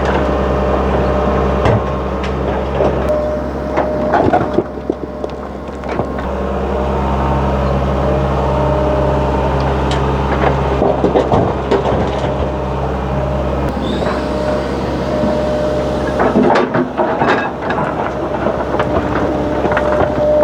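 Heavy diesel machinery, the Hitachi excavator working beside a truck, running steadily with a low hum, with scattered knocks and clatters of metal and material several times.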